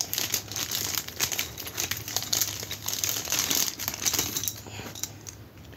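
Crumpled packing paper crinkling and rustling as a hand digs through it inside a cardboard box, an irregular run of small crackles that thins out near the end.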